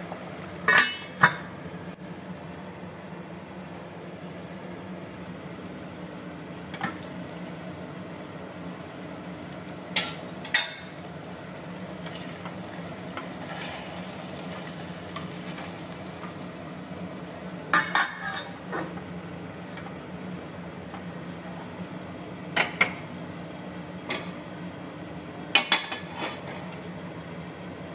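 A wooden spatula stirring biryani rice in a stainless steel pot, knocking sharply against the pot several times, mostly in quick pairs, over a steady low hum.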